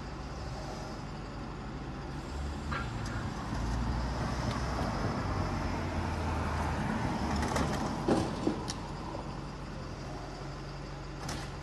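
A car driving along the street, its engine rumble growing louder from about two seconds in and fading after about eight seconds. A few brief sharper sounds come about eight seconds in and again near the end.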